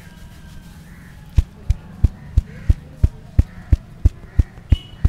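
Head massage: hands working through the hair, then from about a second and a half in a barber's hands striking the scalp in a steady rhythm of dull thumps, about three a second.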